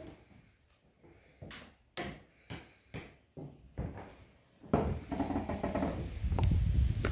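Footsteps on a wooden plank floor, about two a second. About four and a half seconds in, a steady low rumble of breeze on the microphone takes over and becomes the loudest sound, with a few footsteps still clicking through it.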